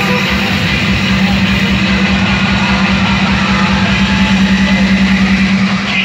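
Loud recorded dance music with a steady beat, played over loudspeakers for a stage dance routine.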